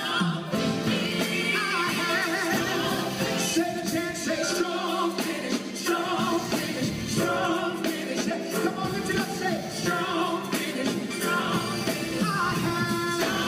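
A live band playing a song: a man singing lead, with women's backing vocals, over drums and a bass guitar.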